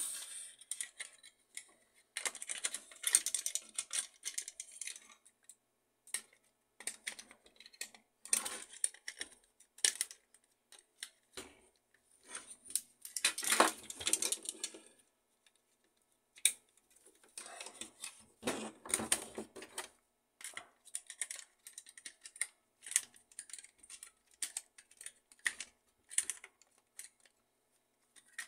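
Plastic end covers of an HP LaserJet M607 fuser assembly being handled and snapped onto its metal frame: irregular clicks, taps and rattles, with a few longer scraping stretches.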